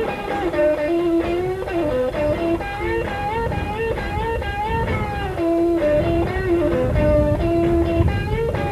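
Guitar music: a melodic lead line with notes sliding and bending between pitches.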